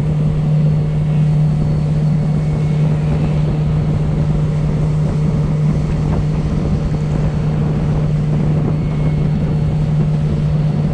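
Suzuki outboard motor of a center-console boat running under way at a steady speed, a constant low hum with no change in pitch.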